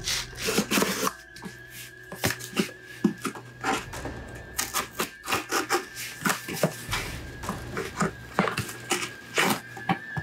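Cardboard shipping box being opened by hand: scissors cutting through the box, then a run of irregular rustling, scraping and tapping as the cardboard and its contents are handled.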